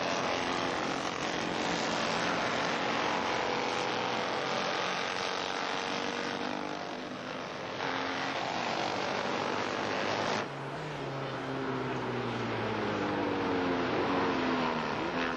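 Several historic-class racing motorcycles running hard, their engine notes rising and falling as they go by. The sound changes abruptly about ten seconds in, and near the end engine tones glide up and down as bikes pass close.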